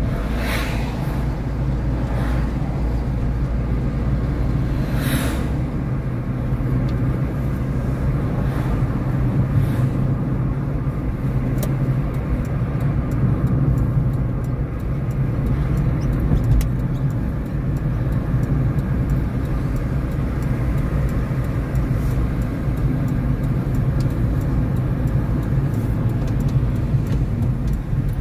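Steady road and engine noise of a car driving, heard from inside the cabin through a dashcam. Oncoming vehicles, among them a bus, pass with a brief whoosh three times in the first five seconds.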